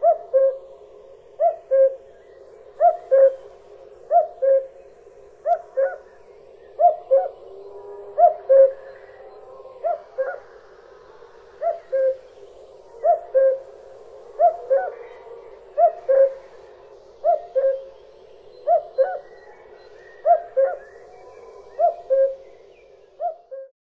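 Male common cuckoo calling its two-note cuck-oo, the second note lower than the first, repeated steadily about every one and a half seconds.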